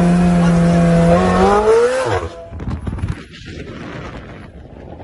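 Sports car engine held at high revs and then accelerating away hard; its note rises and then drops off abruptly about two seconds in. Wind and road noise follow from the following car.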